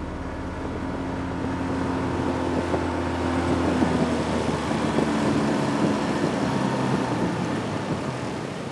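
Small fishing boat's tiller outboard motor running under way, with water rushing along the hull; the engine note swells mid-way and eases off near the end.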